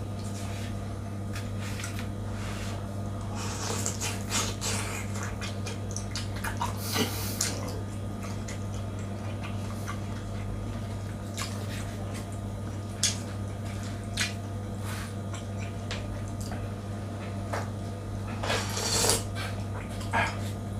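Noodle-eating sounds: scattered clicks of utensils against a bowl and a few short slurps, over a steady low hum.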